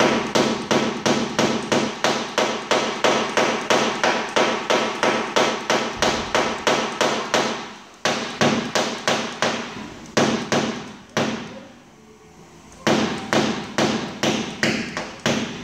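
Small hammer tapping a punch held against a car door panel to knock down the dent during paintless dent repair. The taps come evenly, about three a second, in runs broken by two short pauses in the second half.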